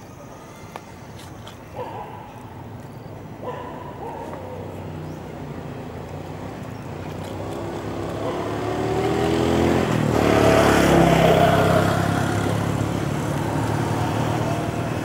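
A motor vehicle's engine draws near, growing louder to a peak about ten seconds in and then easing off. Before it, there are two short pitched calls and a few faint clicks.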